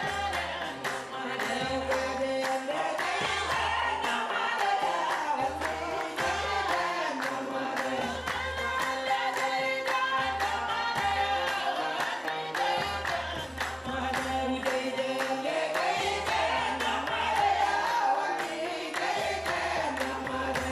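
Sacred folk music: a group of voices sings a melody in unison over a steady low drum beat and sharp percussive strikes.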